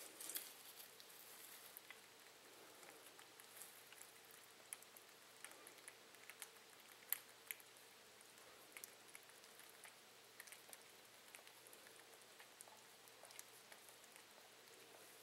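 Near silence with faint, scattered small ticks and rustles from baby cottontail rabbits moving and nibbling in a hay-lined cage. The sharpest tick comes about seven seconds in.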